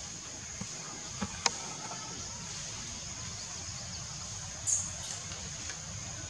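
Steady high-pitched drone of insects, with two sharp clicks about a second and a half in and a short scraping rustle near five seconds.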